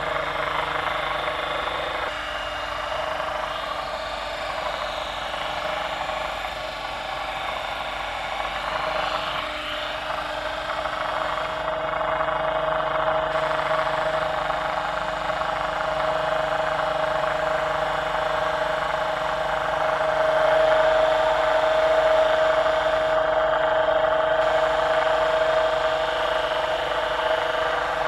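Homemade DC motor built from screws, running on a 12 V lead-acid battery: a steady motor whine over a whirring hum, growing a little louder past the middle.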